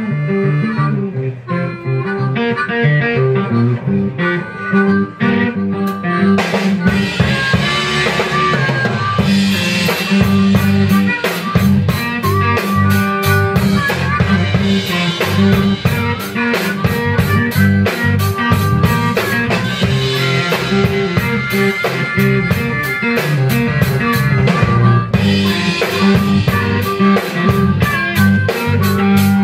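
Live electric blues band. An electric guitar plays alone at first, and the drum kit and the rest of the band come in after about seven seconds with a steady beat.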